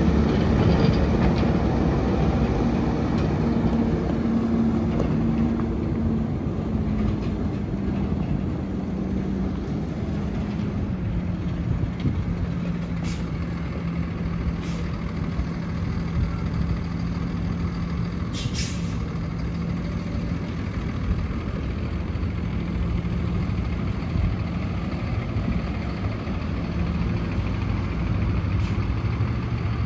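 2009 Peterbilt 335 dump truck's diesel engine running as the truck drives away and turns, its note stepping lower and the sound easing as it pulls off. A few short hisses, typical of air brakes, come in the middle.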